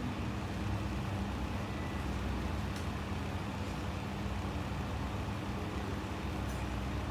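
Steady low rumble with a faint continuous hum, a background machine or traffic drone, and two faint ticks, one about three seconds in and one near the end.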